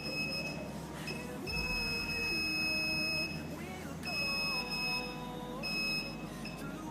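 Security alarm's electronic buzzer sounding a steady high-pitched tone. It switches on and off several times, in stretches of up to about two seconds, each time someone enters its path and then leaves it.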